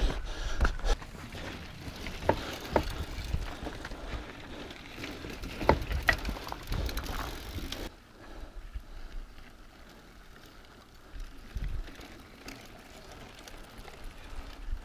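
Mountain bike riding over slickrock: scattered knocks and rattles from the bike over rough rock, with tyre and rushing noise. About halfway it drops suddenly to much quieter, with only a few faint knocks as the bike stands still.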